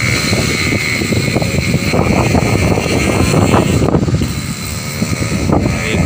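Strong gusting wind blowing across the microphone: a loud, fluctuating low rumble that swells and eases with each gust.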